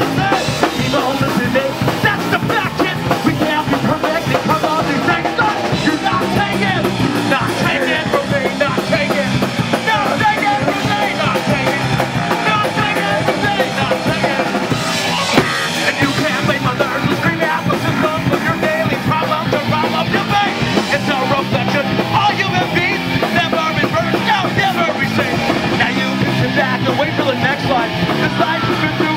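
A live hardcore punk (Nardcore) band playing loudly, with bass guitar and fast drums, and the singer shouting into the microphone. One sharp drum hit stands out about halfway through.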